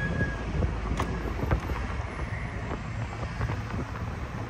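Road and engine noise of a moving car heard from inside, a steady low rumble, with wind buffeting the microphone.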